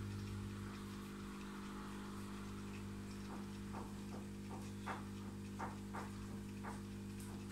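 Steady low electrical hum from the aquarium's running equipment. From about three seconds in, short sharp ticks come about twice a second.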